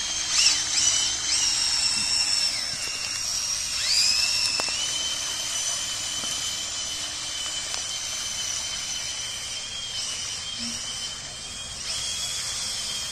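Small electric motor of a remote-control amphibious toy truck whining as it drives across the water. Its high pitch wavers up and down with the throttle, with a sharp dip and recovery about four seconds in.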